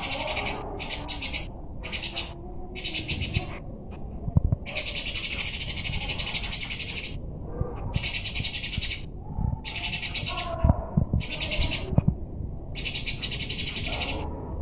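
Cungko bird singing in its long fighting style: a dozen or so bursts of fast, buzzy trilling that start and stop abruptly, with scattered lower chirps between them.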